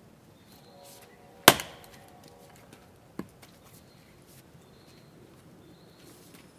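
An axe strikes a log on a wooden chopping block, one loud, sharp crack about a second and a half in, followed about two seconds later by a lighter knock.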